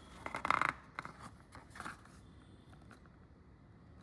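A brief rustle and a few light clicks from the cable's cardboard packaging being handled, near the start, then quiet room tone.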